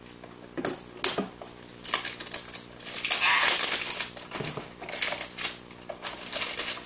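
Small cardboard blind box being handled and opened by hand: scattered clicks and scrapes, with a longer tearing, crinkling rustle about three seconds in.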